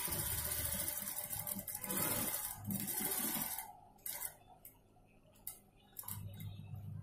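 Industrial single-needle lockstitch sewing machine running, stitching a line through the fabric, then stopping a little past halfway. A few light clicks follow, and a low hum comes in near the end.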